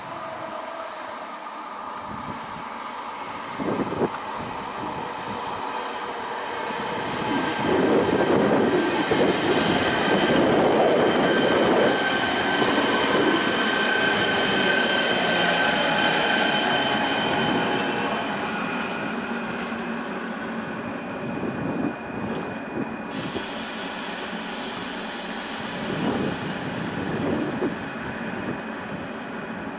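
ČD class 471 CityElefant double-deck electric unit pulling into the platform and braking to a stop, with wheel and brake squeal over the rumble of the cars. It is loudest as the train passes close, and steady high squealing tones fade out well before the end as it halts.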